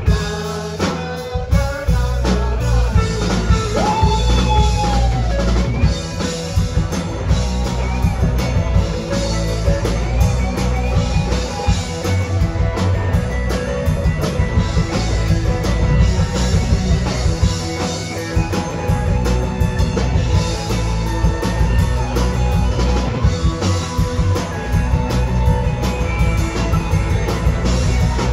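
Live rock band playing loud and steadily: drum kit, electric guitars and bass.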